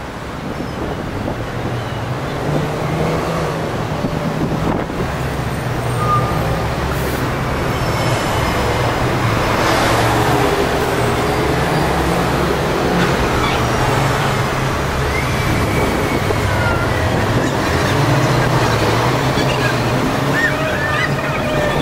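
Street traffic: double-decker buses and a double-decker tram passing close by, with a steady low engine hum and road noise that grows louder over the first half.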